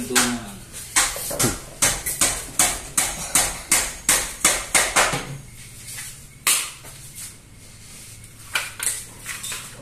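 Hammer blows: a steady run of about a dozen strikes at two or three a second, then a few scattered blows.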